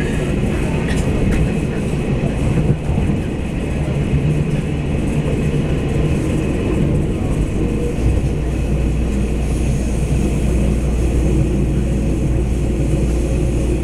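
Cabin noise inside a DR2800 diesel multiple unit railcar running along the line: a steady mix of rumble from the underfloor diesel engine and the wheels on the rails. About eight seconds in, a deeper steady hum comes in.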